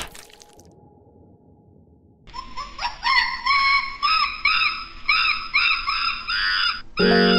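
Repeated high chirping calls, about two a second, starting about two seconds in.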